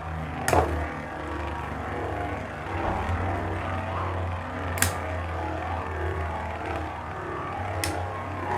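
Two Beyblade spinning tops, Tornado Destroyer and Tornado Leone, whirring in battle with a steady, wavering drone, broken by three sharp clacks as they strike each other, about half a second, five seconds and eight seconds in.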